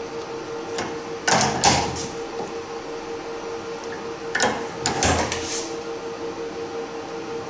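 Ratchet torque wrench being worked on a Delphi diesel injector's valve nut held in a bench fixture, with two short bursts of ratchet clicking, about a second and a half in and again about five seconds in, as the new valve is clamped to a set torque. A steady hum runs underneath.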